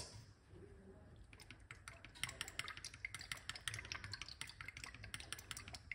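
Faint, rapid, irregular light clicking as a small glass bottle of black seed oil is shaken and tipped over a glass cup.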